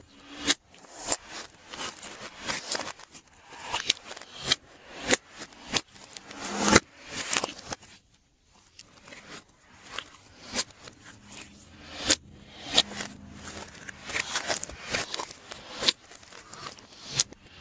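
Glossy slime worked by hand, squished and stretched, giving irregular sticky clicks and crackling pops. A brief lull comes about eight seconds in.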